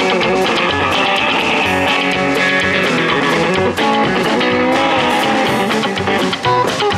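Guitar-led music with bass and a steady beat.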